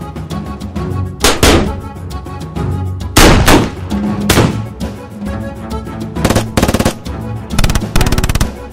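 French military rifle fire: a few single shots, each ringing out, then two short rapid bursts of fully automatic fire typical of a FAMAS F1, with background music underneath.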